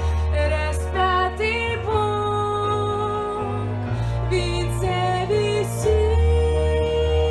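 Music: a slow, gentle song accompaniment with sustained low chords and a melody line above them, with no words sung.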